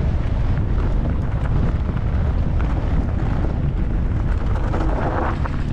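Heavy wind buffeting on the microphone of a camera riding a downhill mountain bike at speed, a steady low rumble with scattered clicks and rattles from the bike over the rough grass.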